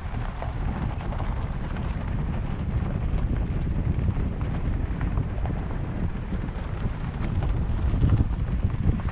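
Wind buffeting the microphone: a steady low rumble that gusts a little louder about eight seconds in.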